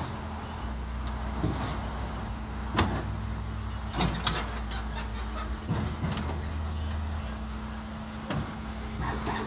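Lowrider hydraulic pump motors on a 1964 Chevrolet Impala running in spells of low hum, with sharp clicks and clunks from the valves, as the car's suspension is raised and lowered.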